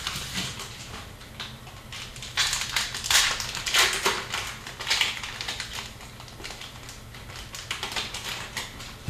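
Upper Deck hockey cards and pack wrapping being handled: a quick run of clicks, flicks and crinkles as a pack is opened and its cards leafed through, busiest from about two to five seconds in.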